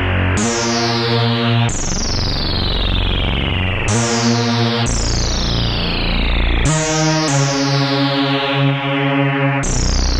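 Dreadbox Artemis analog synthesizer playing its 'Retro Sawyer Bass' preset, a sawtooth bass patch with chords over it. New notes come every one to two seconds, each opening bright and darkening as the filter sweeps down.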